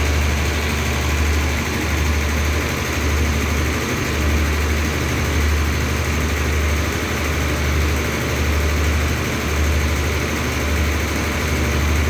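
Diesel engine of a stopped express train idling, a deep steady hum that swells and fades slowly, about once a second, over a constant hiss.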